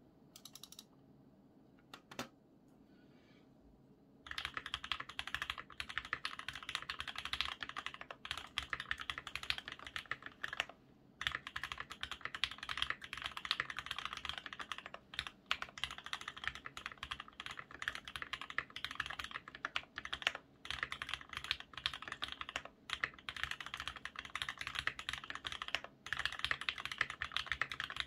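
Continuous fast typing on a custom mechanical keyboard with Krytox-lubed Everglide Red V2 linear switches and Everglide V2 stabilizers in a polycarbonate case. It begins about four seconds in after a couple of faint clicks, with a few brief pauses.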